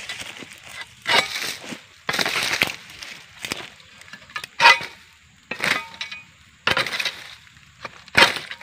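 A freshly sharpened egrek, a sickle blade on a long pole, pulled stroke after stroke through the base of an oil palm frond. Each pull is a short crunching cut, about seven in all at roughly one a second.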